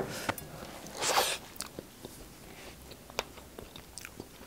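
A man eating thick chicken gravy off his fingers: quiet wet chewing and lip smacks with small clicks, and one louder, hissing mouth sound about a second in.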